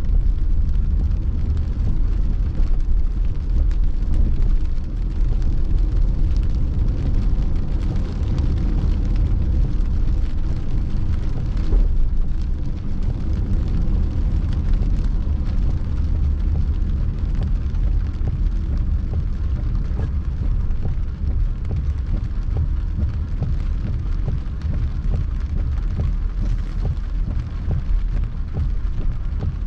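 Heavy rain pattering on a car's roof and windshield, heard from inside the moving car over a steady low road and engine rumble.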